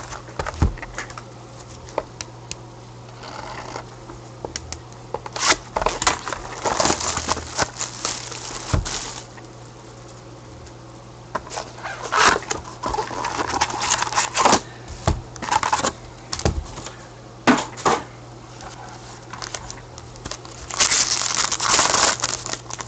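Trading card packaging being handled by gloved hands: plastic wrap crinkling and rustling in several bursts, with cardboard taps and clicks in between, over a steady low electrical hum.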